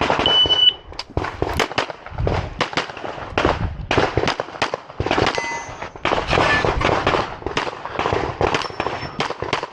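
Electronic shot-timer start beep, then a handgun fired in quick strings of shots, about two to three a second with short breaks between strings as the shooter moves through a practical-shooting stage.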